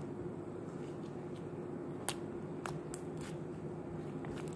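Sticky slime being squeezed and pulled in the hands, giving a few sharp clicks and pops over a steady low hum.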